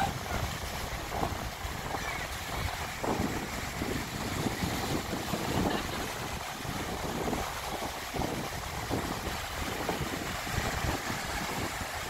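Small sea waves breaking and washing up over a sandy shore in a steady, uneven rush, with wind buffeting the microphone.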